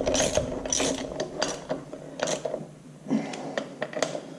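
Irregular metal clicks and clinks of a flywheel hanging from a chain hoist as it is worked onto the crankshaft.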